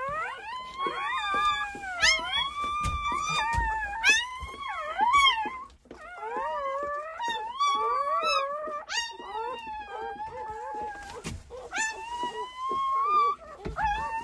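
Newborn puppies crying: several high, thin squeals that rise and fall and overlap almost without a break, with a short lull about halfway through.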